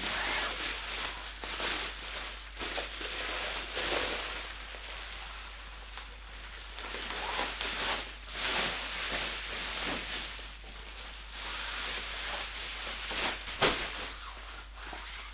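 Bubble wrap and plastic packaging being unwrapped by hand: irregular crinkling and rustling, with a sharp click or snap near the end.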